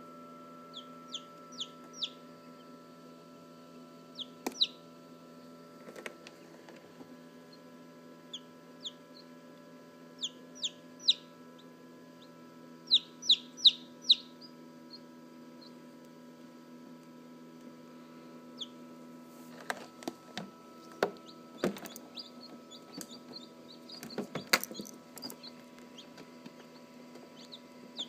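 Newly hatched Polish chick peeping loudly: short, high-pitched, falling chirps in quick clusters of two to four, with pauses between.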